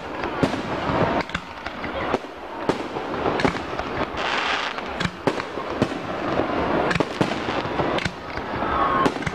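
Fireworks display: aerial shells bursting with repeated sharp bangs at uneven intervals over a dense crackling from the exploding stars, the crackle swelling around the middle.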